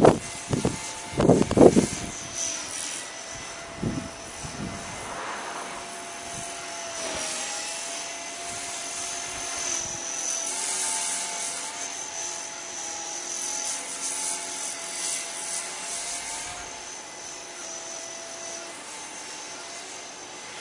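Blade 300X electric RC helicopter in flight: a steady whine from its brushless motor and rotor head, the pitch wavering slightly as it manoeuvres. Wind gusts buffet the microphone in the first couple of seconds and again briefly around four seconds in.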